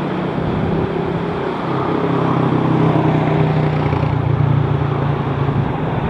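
A low engine hum that swells after a second or two and fades near the end, over a steady wash of surf and wind.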